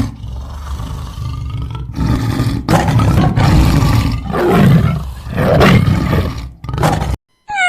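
Tiger growling and roaring: a low rough growl that builds into several loud deep roars, cut off abruptly near the end.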